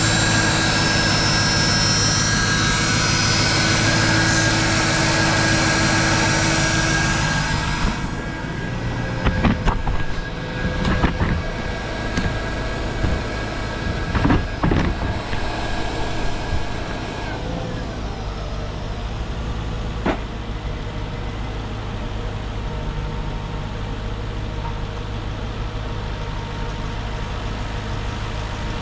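Mercedes SLK 55 AMG's M113 V8 idling steadily with its new drive pulley and serpentine belt fitted, running smoothly. About eight seconds in the sound turns duller, and a few knocks and clunks follow over the next several seconds.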